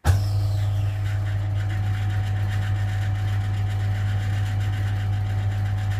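Homemade wooden bandsaw starting up suddenly and running steadily with a strong low hum, its blade running free without cutting.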